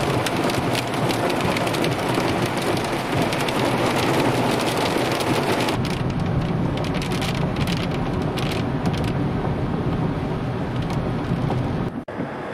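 Hail and rain pelting a car's windshield and roof, heard from inside the cabin. A dense clatter of small hits thins out about six seconds in, over the steady low rumble of the moving car. The sound breaks off abruptly near the end.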